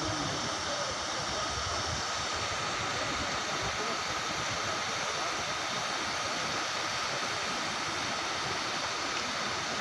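Steady rushing of a fast mountain stream.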